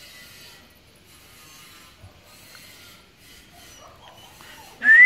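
A person's short, loud whistle rising in pitch near the end, a call to a puppy, over faint rustling before it.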